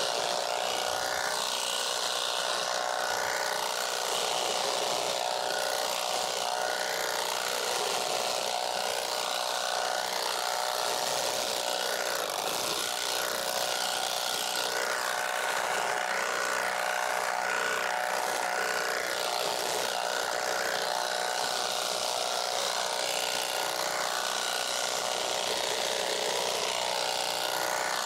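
Battery-powered handheld tea-plucking machine running steadily, its electric motor driving the cutter as it shears tea shoots off the bushes.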